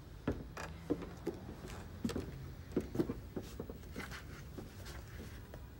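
Faint, irregular soft clicks and rustles of movement and handling in a small room, over a low steady hum.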